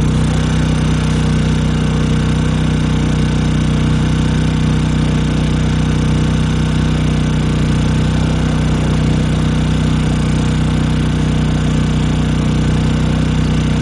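Honda EU2000i inverter generator's small single-cylinder four-stroke engine running steadily under about a 1500-watt space-heater load, at one even pitch with no change in speed.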